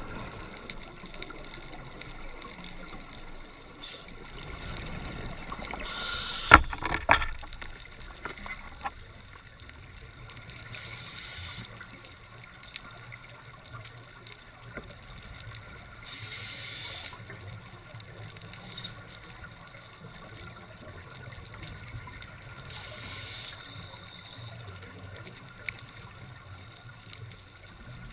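Underwater sound of a scuba diver breathing through a regulator: a hiss of exhaled bubbles about every five to six seconds, four times, over a low steady hum. Two sharp knocks, the loudest sounds, come about six and a half and seven seconds in.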